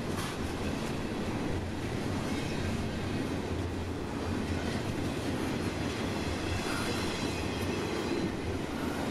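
Norfolk Southern freight train rolling past, a steady noise of railcars running on the track with no clear break or change.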